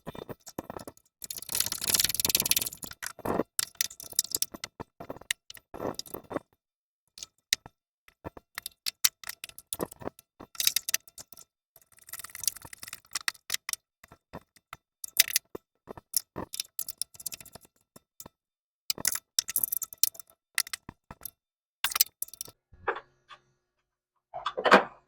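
Hand ratchet wrench clicking in bursts, with scattered metal tool clinks, as the nuts on the air-bag bracket clamp bolts are tightened.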